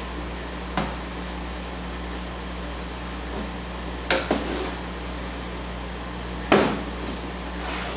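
A few sharp knocks as hand tools and a canvas-covered wooden stretcher frame are handled and set down on a worktable, the loudest about six and a half seconds in, over a steady low hum.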